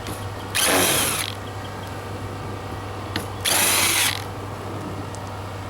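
Cordless drill/driver backing screws out of the camper roof vent frame: two short runs about three seconds apart.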